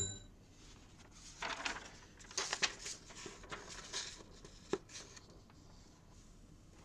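Faint scattered rustling and a few soft clicks, the loudest click about five seconds in.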